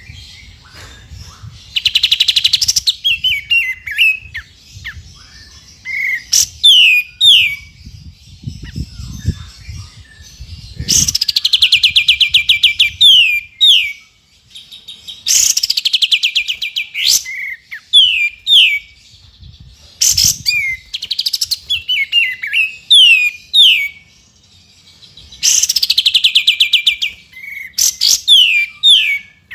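Kapas tembak bulbul singing: bursts of fast, rattling trills about a second or two long, each followed by a few short, down-slurred whistled notes, the phrase coming round again and again.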